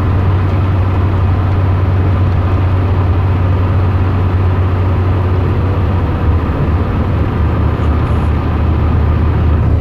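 Steady road and engine noise inside a moving car at highway speed: a strong low drone under a constant hiss of tyres and wind.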